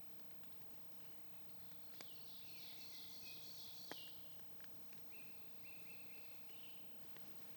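Faint wild songbirds singing: a high, quavering trill-like song from about two to four and a half seconds in, then a thinner, steadier whistled song. Two small sharp clicks stand out, about two and four seconds in.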